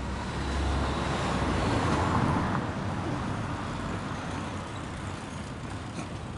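A car driving past on a city street, its engine and tyre noise swelling to a peak about two seconds in and then fading, over the steady hum of street traffic.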